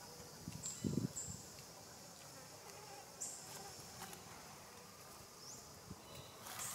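Steady high-pitched insect drone, with a few short high chirps scattered through it and a brief low thump about a second in.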